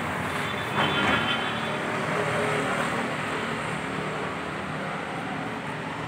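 Road traffic noise: the steady rush of a passing vehicle, swelling about a second in and slowly fading.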